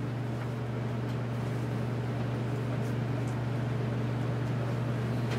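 Steady low mechanical hum with a faint even hiss over it.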